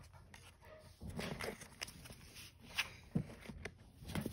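Cardboard baseball trading cards being handled and set down onto a pile on the floor: light rustling with several soft, irregular taps.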